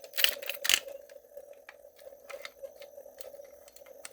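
Sharp metallic clicks and knocks of a Simplex B key being worked in the lock of a Simplex fire alarm pull station: three louder clicks in the first second, then fainter scattered ticks, over a steady hum.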